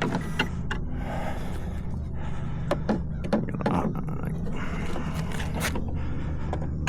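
Sharp plastic clicks and knocks from handling an RC model yacht's hull and cabin as the cabin is pushed onto its mounting posts, over a steady low hum.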